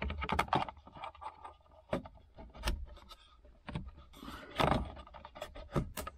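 Brake controller module and plastic trim being pushed into the lower dashboard of a 2016 Ford F-150: a run of sharp plastic clicks and knocks with some scraping, loudest about four and a half seconds in.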